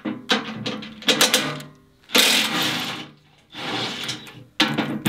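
Cordless drill run in several short bursts, each under a second, spinning out the bolts that hold a tooth bar on a compact tractor's loader bucket.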